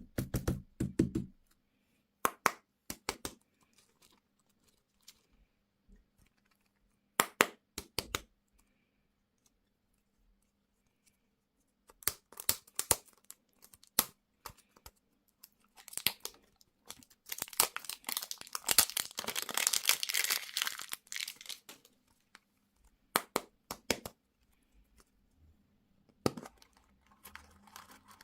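Plastic food packaging being handled, crinkled and torn open, with scattered sharp clicks and taps. A longer stretch of dense crinkling comes a little past the middle.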